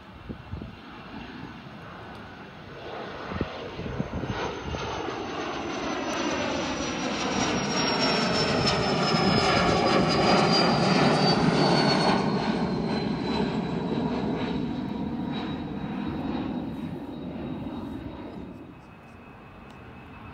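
Small twin-engine business jet with rear-mounted turbofans flying low overhead. The engine noise swells to its loudest about ten seconds in, then fades, and a high whine falls slowly in pitch as it passes.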